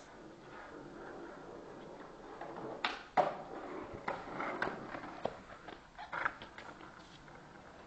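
Skateboard wheels rolling on a concrete walkway, then a string of sharp clacks and knocks of the board hitting the ground during a trick, the loudest about three seconds in.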